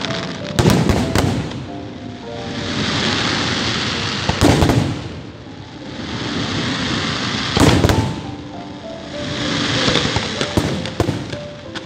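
Fireworks display: loud bangs of bursting aerial shells, a bang or cluster of bangs about every three seconds, with a crackling hiss swelling between them.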